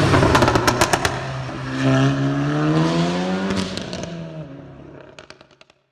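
Volkswagen Golf GTI Clubsport's turbocharged four-cylinder revving through its exhaust. It starts suddenly with a string of sharp crackles and pops, the note rises about two seconds in and then falls away, fading out near the end.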